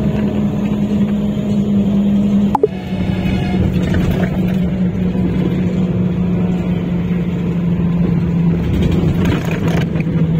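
Bus engine and road noise heard inside the cabin while travelling at speed: a steady low drone and hum. A short click comes about two and a half seconds in, after which the hum sits slightly lower.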